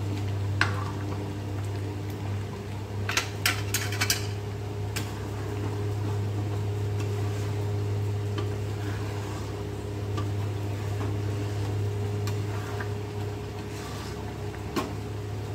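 A spatula scraping and knocking against a kadai as thick dal is stirred while it simmers and bubbles, with a cluster of sharp knocks a few seconds in and another near the end. A steady low hum runs underneath.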